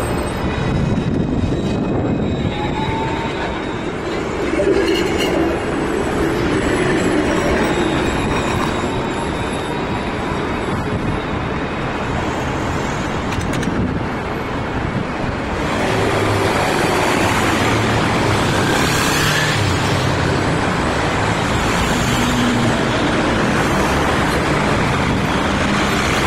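City street traffic with C2-class low-floor trams running past: a steady mix of road traffic and tram noise that grows louder about two-thirds of the way in.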